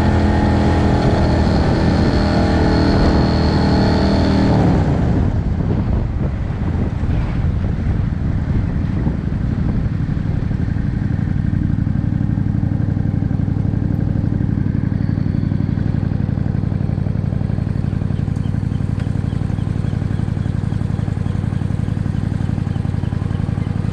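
Cruiser motorcycle engine running under way with wind rushing past, then easing off about five seconds in as the bike slows to a stop, settling into a steady idle.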